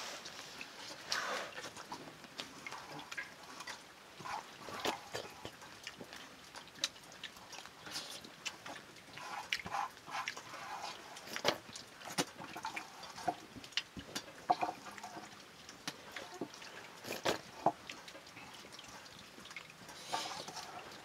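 Fingers mixing and scooping rice in a steel plate while eating by hand: scattered light clicks and scrapes on the metal, with a few short animal sounds in the background.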